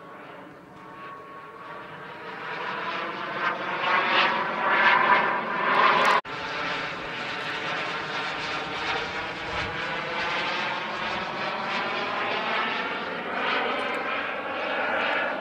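Engine of a radio-controlled model jet in flight. It grows louder to a peak about six seconds in, cuts out for an instant, then holds a steady note as the plane keeps flying.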